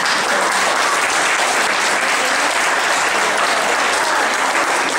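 Audience applauding: a crowd's clapping that breaks out suddenly and holds steady.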